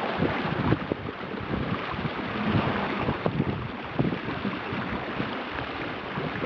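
Wind buffeting the microphone in irregular gusts over the rush of water along the hull of a small sailboat, a Michalak Mayfly 14, under way.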